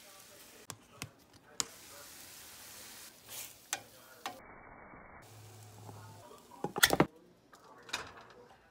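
Cabbage and rice frying with a faint sizzle in a stainless steel pan, with a utensil scraping and tapping against the pan in scattered sharp clicks. A short burst of loud clatter comes about seven seconds in.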